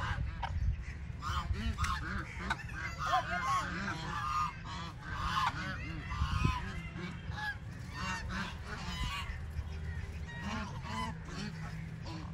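Domestic geese honking: a flock calling over and over, with calls overlapping. The calls are busiest in the first half and thin out after that.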